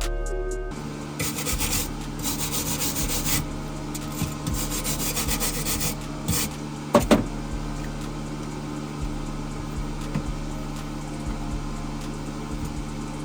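Welding arc crackling in two bursts a few seconds long as a patch plate is welded into a car's shock tower, followed by a sharp knock about seven seconds in, over a steady low hum.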